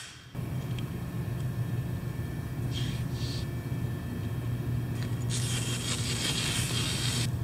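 Adhesive tape pulled off its roll across a floor: a short ripping hiss about three seconds in, then a longer, louder rip lasting about two seconds from about five seconds in. A steady low hum runs underneath.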